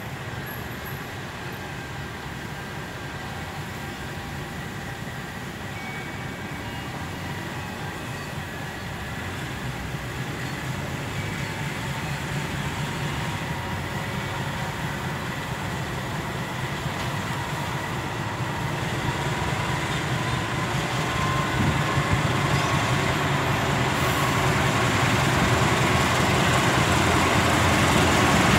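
CC 201 diesel-electric locomotive (GE U18C) hauling a passenger train toward the listener, its diesel engine rumble and running noise growing steadily louder as it draws near.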